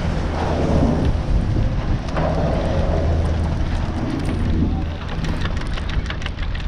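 Doppelmayr detachable quad chairlift heard from a riding chair as it leaves the terminal and runs out along the haul rope: a steady low rumble and hum with a rushing, crackling noise over it. A run of short clicks comes in the second half.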